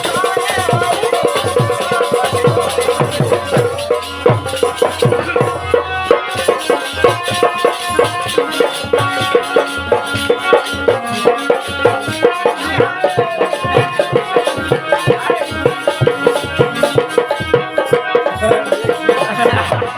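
Instrumental passage of Rai folk music: a fast, steady drum rhythm with shaken, jingling percussion under a sustained melody.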